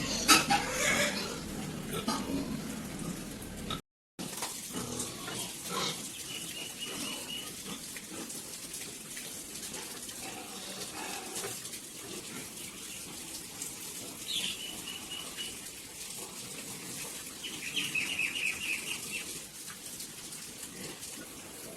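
Pigs on a farm grunting and squealing, loudest in the first few seconds. After a brief cut comes a steady rushing, water-like hiss with a few short runs of high, evenly spaced chirps.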